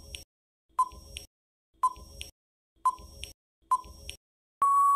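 Countdown-timer sound effect: a short electronic beep with a sharp click about once a second, then one longer, steady beep about four and a half seconds in marking the end of the countdown.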